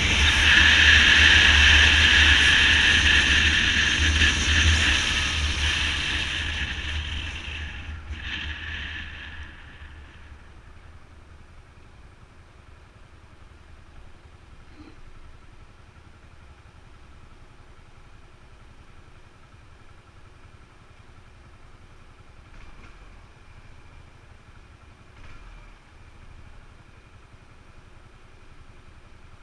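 Motorcycle riding with loud wind and road noise that dies away over the first ten seconds or so as it slows to a stop; then its engine idles quietly and steadily while stopped in traffic.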